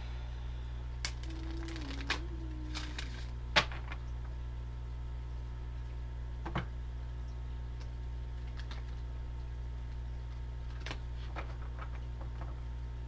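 Oracle cards being handled and laid down: scattered light clicks and taps, the sharpest about three and a half seconds in and a quick run of lighter ones near the end, over a steady low hum.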